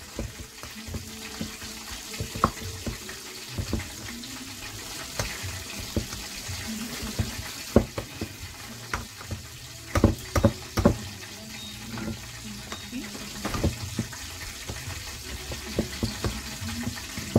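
Metal potato masher knocking and scraping against a stainless steel bowl while mashing boiled eddoes, with irregular sharp clanks, the loudest cluster about ten seconds in. A steady sizzle of chicken frying in oil runs underneath.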